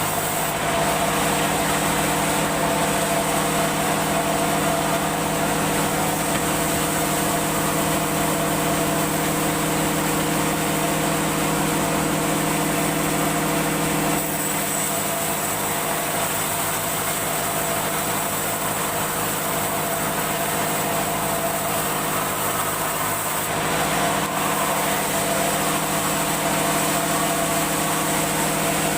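Woodworking machine motor running steadily with a constant hum; its tone shifts slightly about halfway through.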